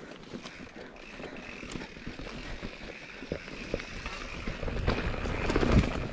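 Mountain bike riding over rough, rooty singletrack: rattling and knocking from the bike, with wind rumble on the microphone, getting louder near the end.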